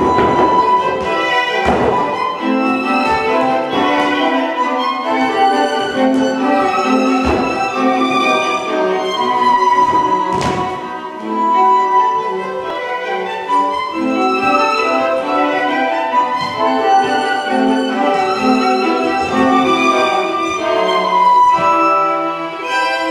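Instrumental music led by a violin, with other bowed strings behind it, playing a continuous melodic passage.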